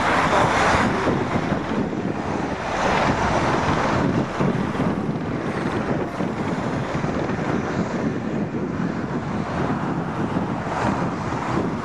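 Boeing 737's CFM56 jet engines running at taxi power as the airliner rolls past, a steady jet rumble and hiss that eases slightly after the first second or two, with wind buffeting the microphone.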